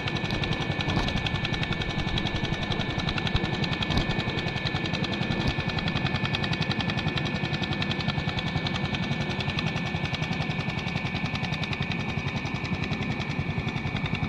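ATV engine running steadily, a rapid, even pulsing.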